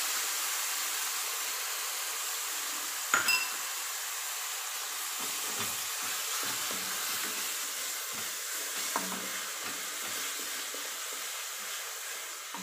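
Tomato and onion masala sizzling steadily in a steel kadai while a wooden spatula scrapes and knocks against the pan as it is stirred. One sharp clink about three seconds in.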